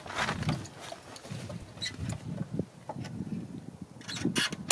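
Scattered light clicks and knocks with rustling, from flat-pack cabinet and drawer parts being handled and fitted, with a small cluster of clicks near the end.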